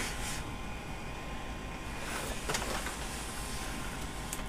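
Steady low hum and hiss of room noise, with a few faint brushing sounds as a hand and the camera move over the computer case.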